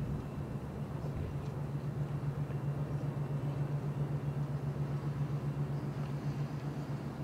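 A steady low engine drone with a fast, even pulsing beat.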